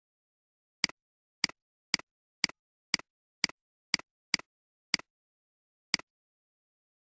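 Computer mouse button clicks: ten sharp single clicks, most about half a second apart, with a longer gap before the last one.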